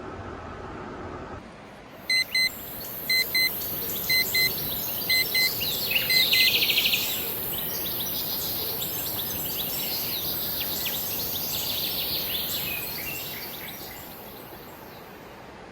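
An electronic beeper sounds five quick double beeps, about one pair a second. Then birds chirp and twitter, starting with a rapid trill.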